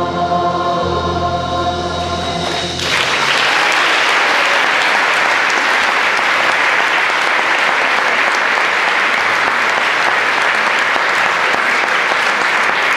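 A choir holds its final sung chord, which cuts off about three seconds in, and the audience breaks into steady, loud applause.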